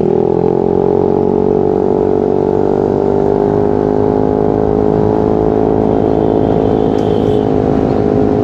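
Yamaha Aerox scooter engine running under way, its pitch rising slightly in the first second and then holding steady at cruising speed.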